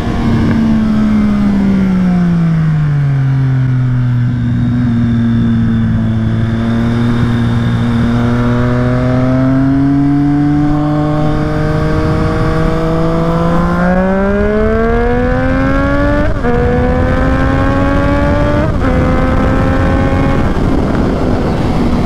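Triumph Street Triple 765 RS inline-three engine through a Yoshimura exhaust. Revs fall away over the first few seconds and hold low and steady while the bike cruises. The engine then climbs under acceleration, with two quick upshifts in the last third.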